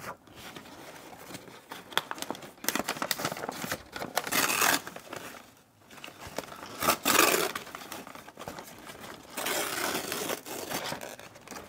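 Brown kraft paper wrapping crinkling and rustling as a wrapped potted plant is handled and lifted out of a cardboard box, with several louder bursts of crinkling and many small knocks.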